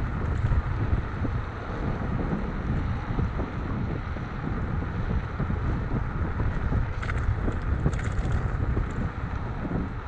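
Wind buffeting the microphone of a camera riding on a moving electric scooter at speed: a steady rush of wind with a low, rumbling road noise beneath it.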